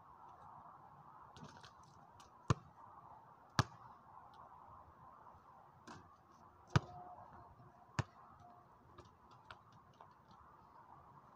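A basketball hitting hard surfaces, bouncing on pavement and off the hoop: four sharp thumps, the loudest about two-thirds of the way in, with lighter taps between them.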